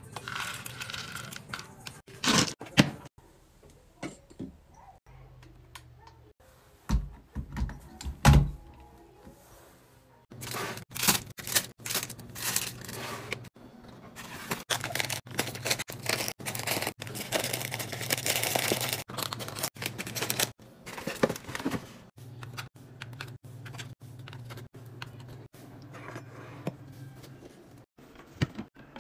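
Items being handled in a fridge: plastic containers and packaging clicking, knocking and crinkling as they are set down and moved, in quick irregular runs. A steady low hum sits underneath for long stretches after about 10 seconds in.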